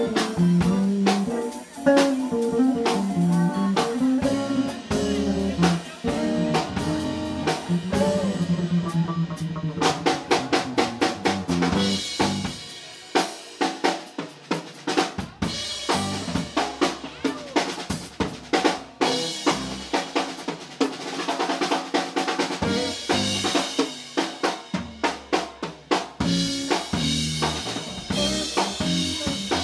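Live band with Hammond B-3 organ, electric guitar, bass and drum kit playing. From about ten seconds in the drums take over with dense snare and cymbal strikes while the other instruments drop back.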